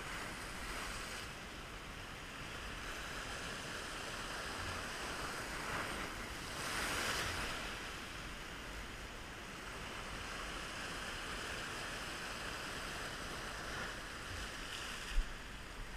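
Ocean surf washing and foaming around rocks in a steady wash, with one louder surge about seven seconds in.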